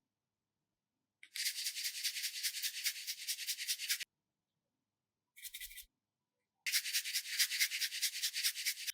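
Rapid, scratchy rubbing sounds in three bursts: a long one, a short one a second later, and another long one near the end, with dead silence between them.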